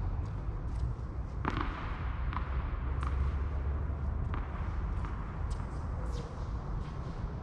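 Tennis rally: a few sharp pops of the ball being struck by rackets and bouncing on the court, the loudest about a second and a half in, over a steady low rumble.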